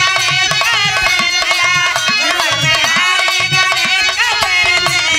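Instrumental interlude of Indian folk music: harmonium holding and moving through notes over a quick, steady dholak beat, with some sliding notes in the melody.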